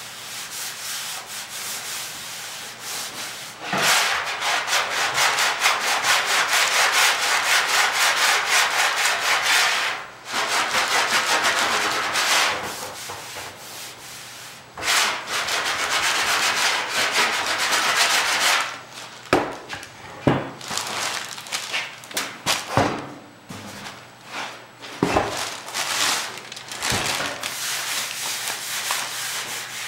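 Hand sanding across the bare steel of a Citroën DS trunk lid during dent repair: long spells of quick back-and-forth rubbing strokes. In the last third the strokes give way to several separate sharp knocks with short rubs between.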